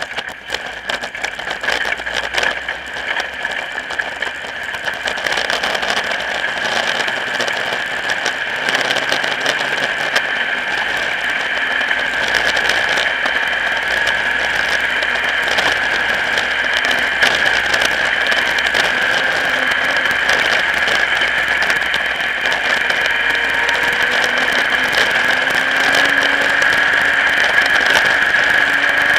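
Modified race car's engine running, heard through an onboard camera mounted on the car's body, with many small rattles and ticks over a steady engine note. It grows a little louder over the first few seconds, then holds steady.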